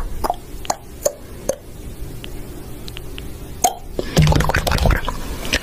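A few soft, scattered pops and clicks over a faint low hum, then a voice coming in about four seconds in.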